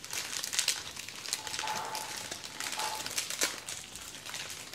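Small plastic snack packets of dried flavoured crickets crinkling and crackling as they are handled, in a run of fine, irregular crackles.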